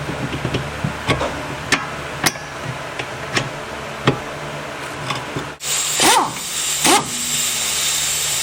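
Sharp metal knocks and clanks as a car's strut end is pried into its lower bracket and the bracket bolt worked into place. A little over halfway through, a louder steady hiss sets in with a few harsh scrapes.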